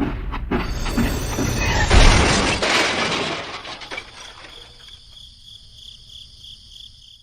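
A loud crash about two seconds in, like glass shattering, fading away, then a faint high pulsing ringing tone that cuts off at the end.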